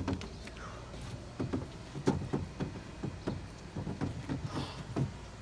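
Homemade PVC-pipe parallette bars knocking and rattling against the wooden deck under a set of dips: a string of irregular light knocks.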